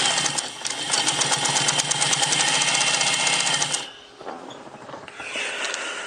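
Pfaff 130 sewing machine running at speed with a rapid, even clatter of needle strokes while sewing a wide zigzag. It stops abruptly about four seconds in, leaving only quieter handling noise.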